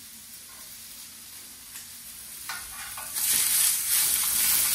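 Rack of lamb searing in a hot cast-iron pan: a quiet steady sizzle, a few clicks of the meat or utensil against the pan, then a much louder burst of sizzling about three seconds in as the rack is turned to sear the other side.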